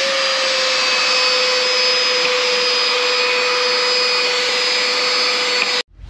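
XREXS cordless handheld vacuum running at full power: a steady high motor whine over rushing air, which cuts off suddenly near the end.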